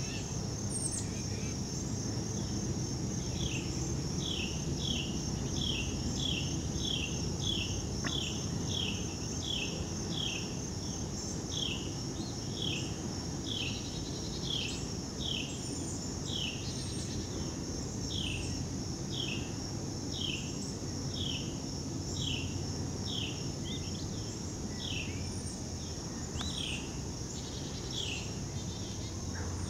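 A steady high-pitched insect chorus. From about three seconds in, a repeated short falling chirp comes one or two times a second, over a low steady background rumble.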